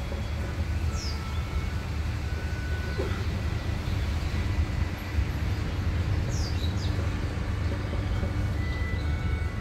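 A few short, high, falling bird chirps: one about a second in and two close together around six and a half seconds. They sit over a steady low rumble.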